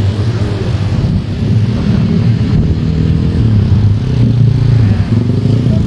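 Road traffic: motorcycle and car engines running past in a steady low drone that swells about four seconds in.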